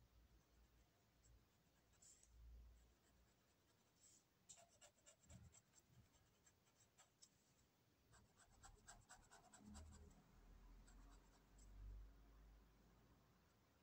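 Faint pen nib tapping and scratching on paper while drawing small circles and dots, in quick runs of light ticks, with a few soft low bumps from the hand on the paper.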